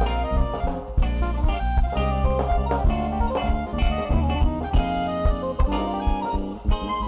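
Band music with a drum kit and guitar, sharp drum hits keeping a steady beat under layered notes.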